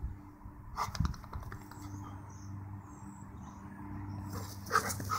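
Two black Labradors play-fighting: low, drawn-out growling, with a short sharp snarl about a second in and a flurry of snarls and yaps near the end.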